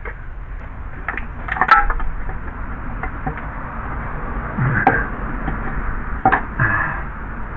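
Scattered knocks and clunks of metal parts being handled as an intake manifold is lowered onto the engine over guide dowels and settled onto its gasket. The sharpest knocks come about two, five and six seconds in.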